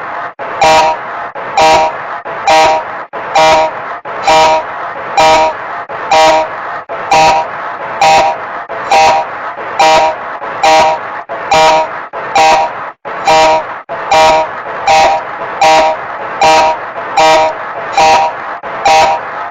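FrontRow Juno classroom audio system's intercom alert: a short, loud electronic tone repeating just under once a second over a steady hiss.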